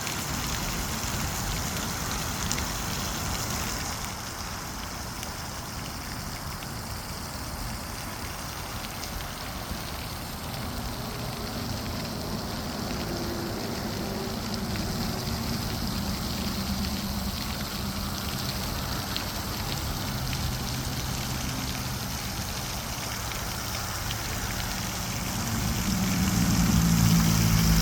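Water fountain splashing steadily. A low hum joins in partway through and grows louder near the end.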